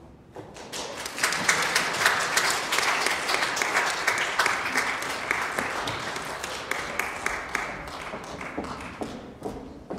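Audience applauding, swelling about a second in and slowly dying away toward the end.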